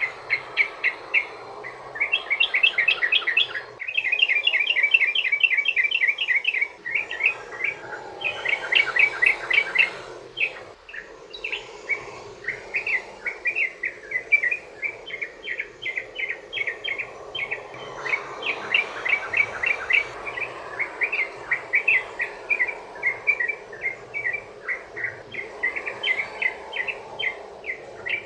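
Yellow-vented bulbul (trucukan) singing long, fast runs of short chirpy notes, several a second, with brief pauses between runs, over a steady background hiss; the long rolling song used as a lure to draw other trucukan into answering.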